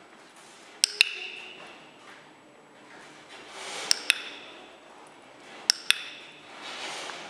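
Dog-training clicker clicked three times, each a sharp two-part click, press and release, marking the dog's nose touches on the target.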